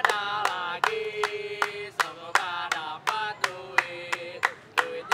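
Two young male voices singing a chant together, clapping their hands in a steady beat of about three claps a second.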